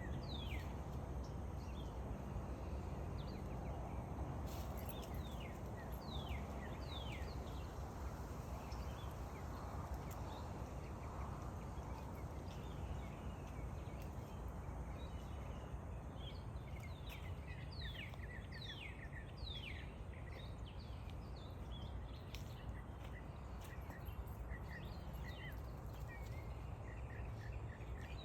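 Red-wattled lapwing calling in short, sharp notes that fall in pitch, given in quick runs over and over, most densely in the second half. A steady low rumble of outdoor noise runs underneath.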